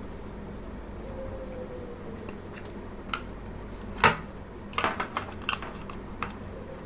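Plastic clicks and knocks from a hand-operated vegetable chopper's pull-cord mechanism as it is pressed down and turned by hand to seat its recoil spring in the lock. There is one sharp click about four seconds in, then a quick run of smaller clicks.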